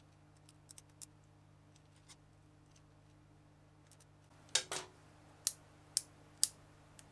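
Small screwdriver and tiny steel coil spring clicking against the plastic clutch shoes of an RC car's 3-speed centrifugal clutch as a spring is worked into its seat. There are faint ticks at first, then a short scraping double click a little after four seconds in and sharp single clicks about every half second near the end.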